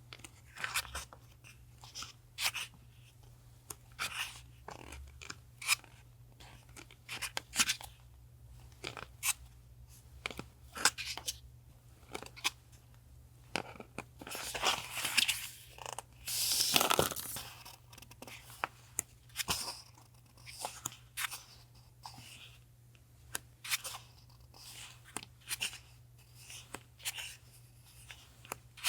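Packaging being handled and opened by hand: repeated crackling, crinkling and tearing, with a longer tearing rustle about halfway through.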